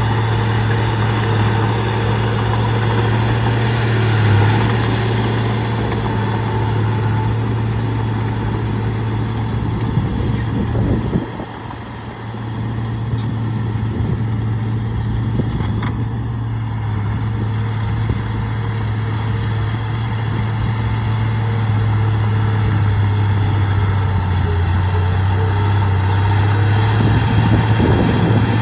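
Heavy earthmoving machine's engine running under steady load with a low drone. It drops away briefly about eleven seconds in, then picks back up.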